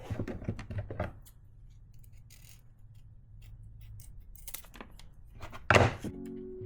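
Small hand-work clicks and snips: a quick cluster of sharp clicks in the first second, a few scattered ticks, then one louder scraping burst near the end.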